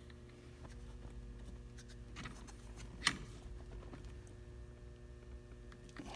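A steady low hum with a few light metallic clicks and one sharper click about three seconds in, as a steering wheel puller is worked on the column.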